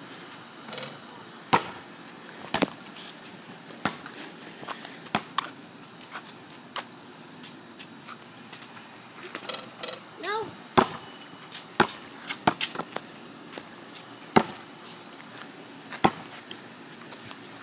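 Basketball bouncing on a concrete driveway and striking the hoop, a series of sharp single smacks at irregular intervals rather than a steady dribble.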